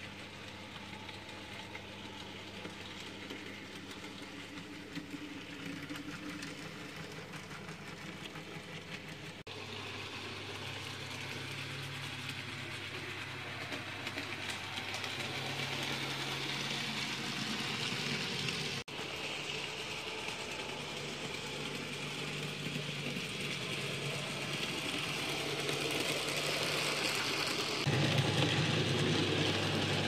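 N gauge model diesel locomotives running on the layout: a steady electric motor hum with the whir of small wheels on the track. The sound breaks off abruptly twice and changes each time, and it grows louder, with a jump near the end.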